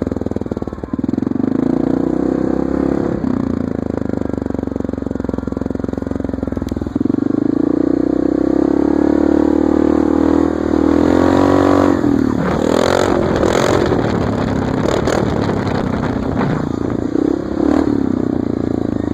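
Yamaha Grizzly 660 ATV's single-cylinder engine running through an HMF Penline Pro Series exhaust, very loud, as the quad is ridden slowly. The revs climb under throttle a few times, with a clattery rattling stretch about two-thirds of the way through.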